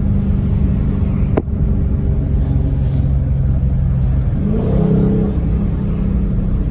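2020 Dodge Charger Scat Pack's 6.4-litre 392 HEMI V8 running under way. There is a sharp click about a second and a half in, after which the engine settles to a lower steady pitch. A little past halfway the revs climb quickly.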